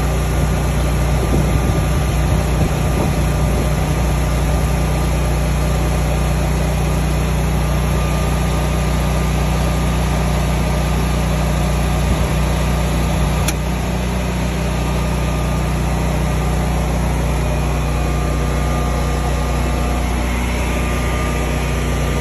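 Generac Guardian 22 kW home standby generator's V-twin engine running steadily, just started automatically because the utility power has been switched off. About halfway through there is one sharp click, the transfer switch moving the house onto generator power.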